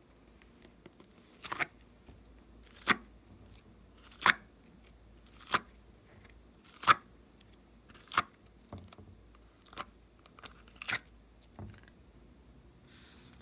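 Soft modeling-clay bars pulled one at a time out of a plastic tray's compartments and dropped into a glass dish: seven sharp crackling pops about a second and a half apart, then a few fainter ones.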